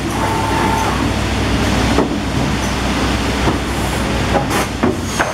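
Cursal TRSI automatic crosscut saw running steadily, with clunks and clicks from its pneumatic clamp and push-feed mechanism as a board is moved into place. A short whine sounds near the start.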